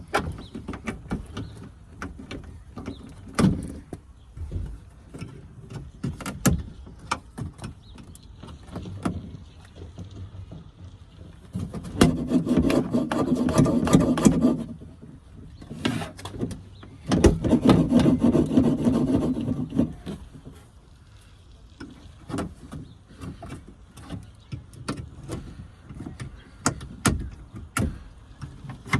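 Plastic interior door panel and trim of a car door being handled and worked loose: scattered clicks and knocks, with two longer, louder rubbing, rattling stretches of a few seconds each in the middle.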